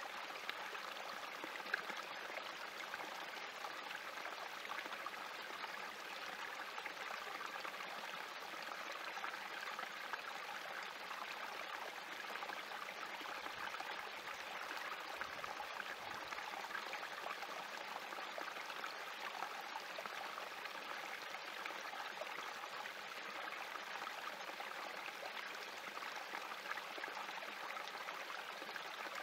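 Small spring creek running steadily, water trickling over rocks in a shallow cascade.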